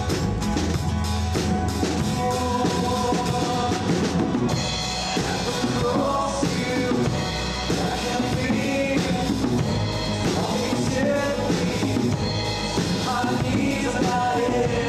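Live band music: an electric bass guitar and a drum kit playing a song together, with a melody line above them.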